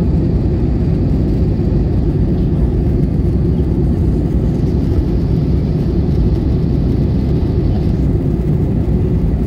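Steady low drone of an Airbus A320-family jet airliner in flight, heard from inside the cabin: engine and airflow noise, even throughout.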